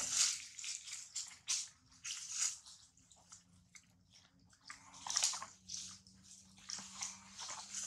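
Newborn macaque suckling hard at its mother's nipple: irregular wet sucking and breathy sounds, with a quiet spell near the middle.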